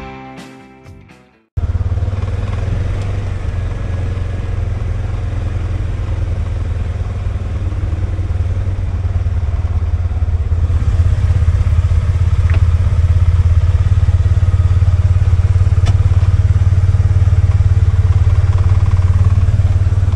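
Guitar intro music fading out, then after a sudden cut about a second and a half in, a Polaris 570 engine idling steadily with a deep low rumble.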